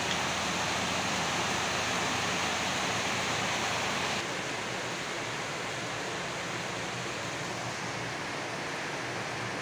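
Steady rain falling, an even hiss with no single drops standing out. It becomes slightly quieter and duller all at once about four seconds in.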